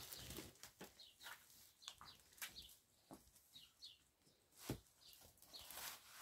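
Faint, sparse bird chirps about once a second over soft knocks and rustling, as a cloth sheet is shaken out and spread on the floor, with one dull thump about three-quarters of the way through.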